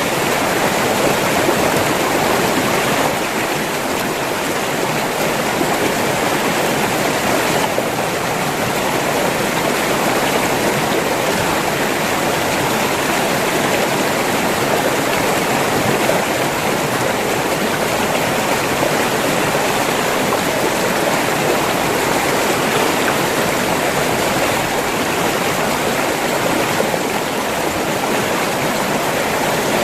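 River water rushing and gurgling over rocks, a loud, steady flow.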